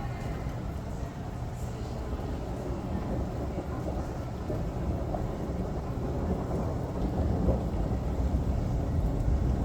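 Low rumble of thunder over steady rain, growing gradually louder toward the end.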